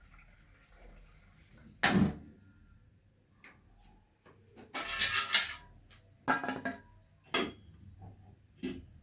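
A cooking pot being handled at a kitchen sink: a few separate knocks and clanks, with a short splash of water about five seconds in, as lentils are rinsed.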